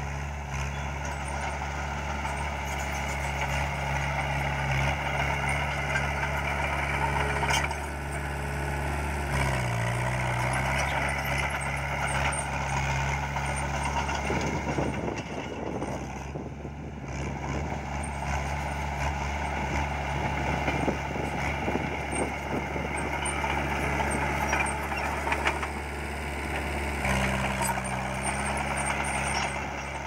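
Komatsu crawler bulldozer's diesel engine running steadily as the dozer pushes and spreads dirt with its blade. The engine note dips briefly about ten seconds in, there is a rougher, noisier stretch around the middle, and the pitch steps up near the end.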